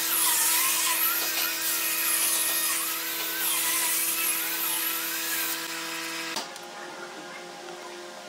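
Handheld electric angle grinder with a sanding disc running against wooden boards, a steady motor whine that wavers in pitch as it works. It cuts off suddenly about six seconds in, leaving a quieter steady background.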